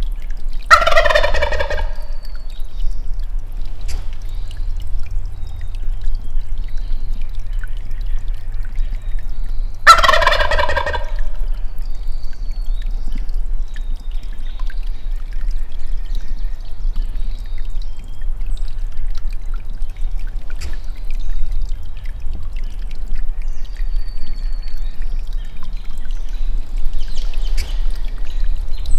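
Wild turkey gobbler gobbling twice, each gobble a loud rapid rattle of about a second, the second coming about nine seconds after the first.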